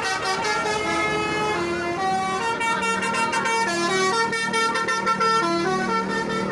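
Indonesian bus 'telolet' horn, a multi-tone musical horn, playing a quick tune of stepped notes with several tones sounding together. A low steady drone joins about two and a half seconds in.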